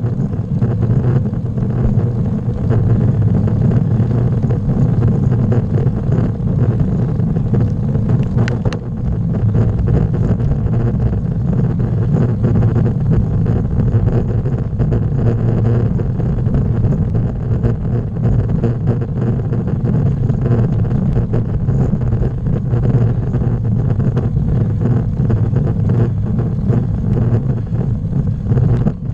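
Steady low wind buffeting and tyre rumble on a bicycle-mounted action camera as the road bike rolls over asphalt, with one brief click about nine seconds in.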